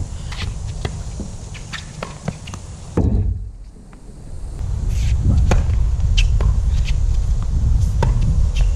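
Wind rumbling on the microphone, with scattered sharp pops and taps from tennis play on a hard court: racket strikes, ball bounces and footsteps. The sound drops away suddenly about three seconds in and swells back up over the next two seconds.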